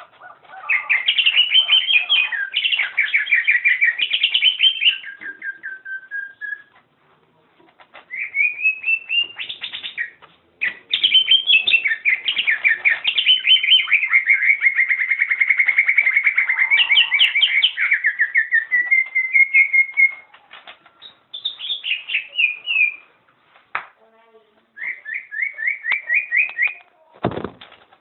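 Caged cucak hijau (green leafbird) singing long runs of rapid, repeated chattering notes with short pauses between phrases: the 'ngentrok' song style that keepers prize. A low bump comes near the end.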